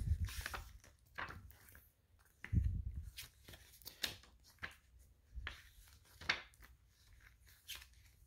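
Paper pages of a CD booklet being turned and handled: soft rustles and light taps, with a dull bump about two and a half seconds in.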